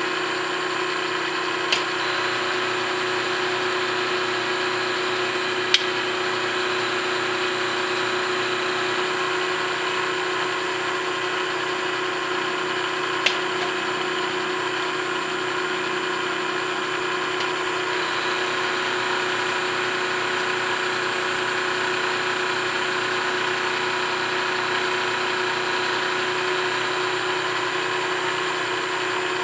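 Vertical milling machine running with its end mill cutting a metal block: a steady machining hum and whine with one strong held tone. A few sharp ticks stand out, about two, six and thirteen seconds in.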